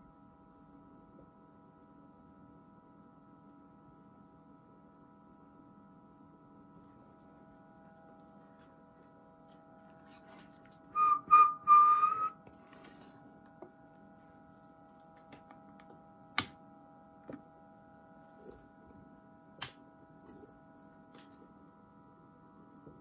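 A short whistle of about a second and a half, rising slightly in pitch at its end, modulating the Codar AT5 valve transmitter's AM carrier. It is followed by a few sharp switch clicks, over a faint steady hum of several tones.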